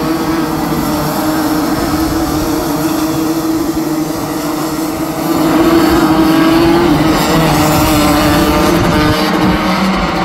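A pack of Rotax Max 125cc two-stroke racing kart engines running at high revs, several engine notes overlapping as the karts lap the circuit. The sound gets louder about five seconds in.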